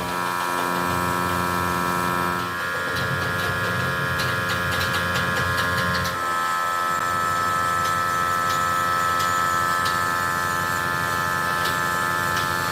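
Steady electric machine hum with several whining tones. The pitch set shifts abruptly about two and a half seconds in and again about six seconds in.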